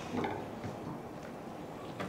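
Quiet room tone with a couple of faint soft sounds early on.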